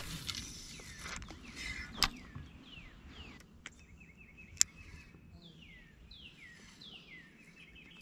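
A spinning rod being cast with a short swish at the start, followed by a few sharp clicks as the reel is worked. Birds call in the background with a run of short falling whistles through most of the clip.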